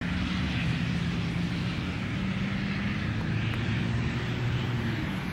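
Steady low drone of a diesel locomotive engine on an approaching train, its pitch shifting slowly lower partway through.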